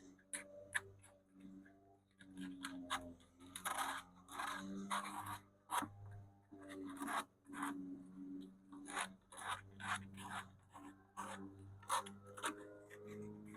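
Sandpaper rubbed by hand over the thin wooden veneer of an antique radio cabinet, in short, irregular scratchy strokes about two a second.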